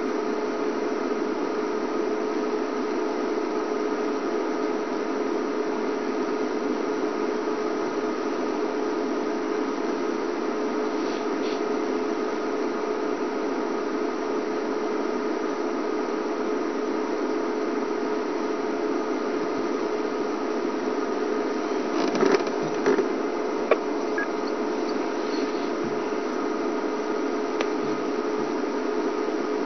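Game-drive vehicle's engine idling, a steady unchanging hum kept running so the rhinos stay relaxed. A few faint knocks come about two-thirds of the way through.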